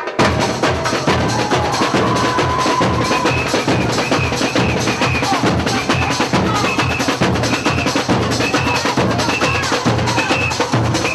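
Samba percussion playing a fast, dense beat with deep bass-drum pulses and many quick hand-drum and stick hits. The full beat comes in sharply right at the start, and a short high note recurs about once a second.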